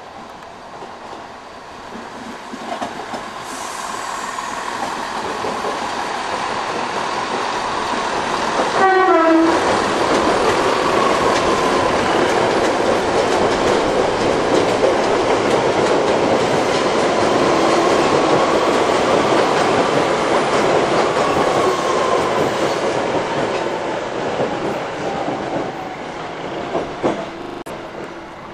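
A multiple-unit passenger train passing the platform, its running noise building, holding and then fading as it pulls away, with a clickety-clack of wheels over the rail joints. A faint whine rises and falls in pitch as it passes, and a short horn sound comes about nine seconds in.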